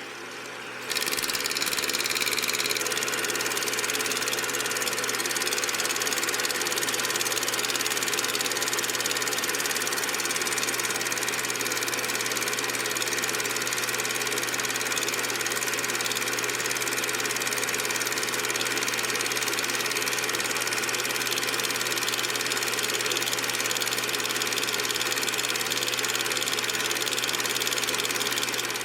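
A motor running steadily at an even pitch, starting abruptly about a second in.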